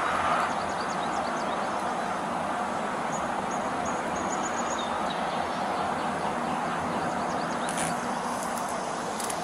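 Steady rumble of idling vehicle engines, with a few faint high chirps about halfway through.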